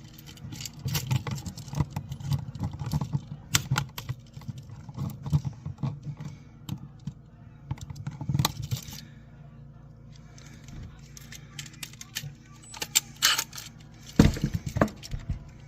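Small metallic clicks and rattles of hand tools and wires being handled while an electrical outlet is wired, with a louder knock about fourteen seconds in.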